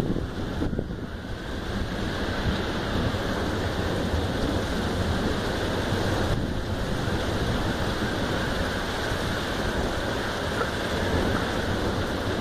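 Heavy rain pouring down in a thunderstorm: a continuous, even hiss.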